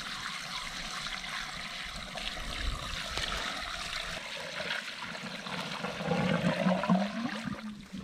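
Water poured from a bucket into a pipe, a steady pour that grows louder near the end.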